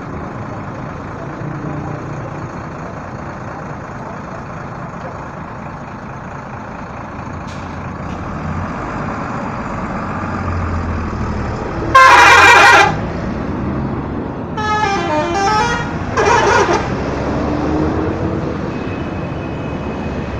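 Tour bus telolet musical horns sounding over the steady running of idling bus engines and traffic: a loud horn blast about twelve seconds in lasting under a second, then a warbling run of tones gliding up and down, then another short loud blast.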